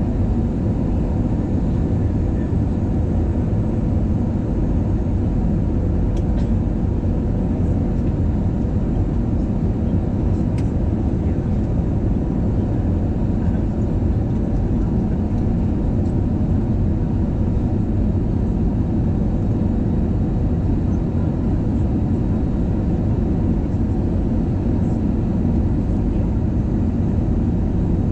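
Steady cabin drone of a twin-engine jet airliner on its landing approach: turbofan engine and airflow noise heard from a window seat over the wing, with a faint steady hum running through it.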